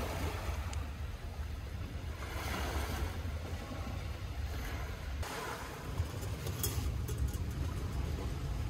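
Small waves washing onto a pebbly shore, swelling and easing a couple of times, under a steady low rumble of wind buffeting the microphone.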